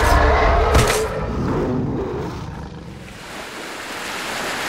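A loud, wavering monster roar for a giant crab over the first two seconds, dying away into the hiss of sea surf washing over rocks.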